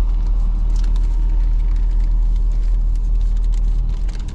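Car running at low speed, heard from inside the cabin: a steady low rumble of engine and road noise, with a few faint clicks.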